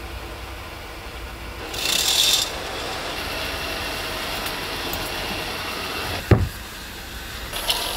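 A bunk's fabric curtain is swished open about two seconds in, followed by rustling as a person climbs down the ladder from an upper bunk, and a single thud of feet landing on the floor near the end. A steady low drone of the ship's engines is heard throughout.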